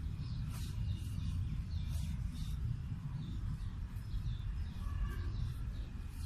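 Outdoor background noise: a steady low rumble with faint, short high-pitched chirps recurring throughout.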